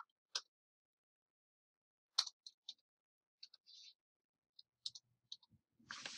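Faint, scattered clicks, a dozen or so at irregular intervals, with a short rustle near the end.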